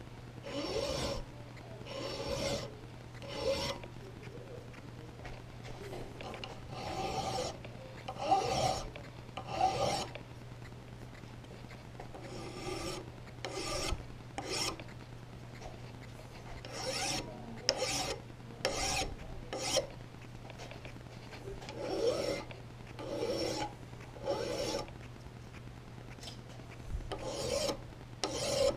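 Long flat hand file rasping over the steel of an old hatchet head held in a vise, in repeated push strokes about a second apart, in runs with short pauses between them.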